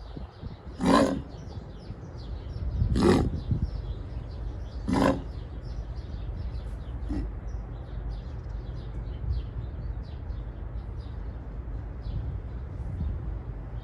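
A sick dog making four short, harsh, honking breaths about two seconds apart, the last one weaker. Underneath is a steady low hum, with faint chirps.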